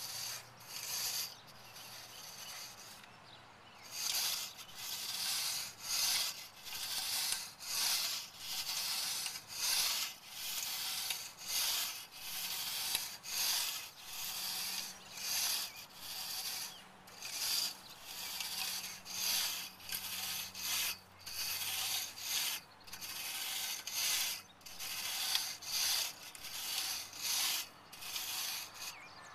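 Wide aluminium infield rake scraping back and forth over the infield dirt, a steady run of rasping strokes a little more than one a second.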